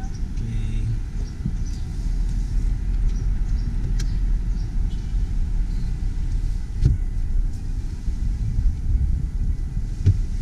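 Low, steady rumble of a Nissan car's engine and tyres heard from inside the cabin as it rolls forward slowly, with a few light knocks along the way.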